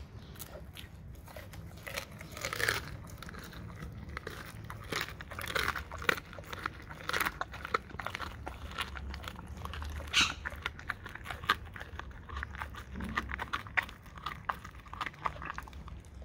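A dog biting and chewing a raw salmon head, its teeth crunching through the bone and cartilage in irregular bites, with a few sharper, louder cracks scattered through.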